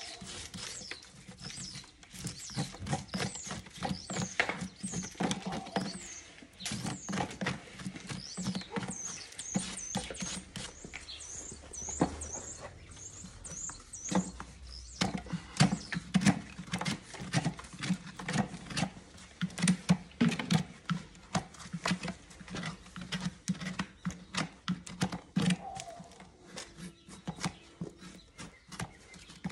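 Stiff brush scrubbing dirt from a horse's hoof sole and frog, in quick, irregular rasping strokes.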